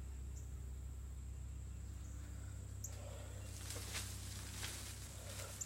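Central air-conditioner outdoor units running with a steady low hum, under a constant thin high-pitched tone. Faint scuffs come in about halfway through.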